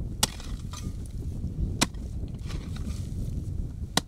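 A long-handled digging tool striking hard, dry clay three times, one sharp blow every couple of seconds, as a fox den is dug out.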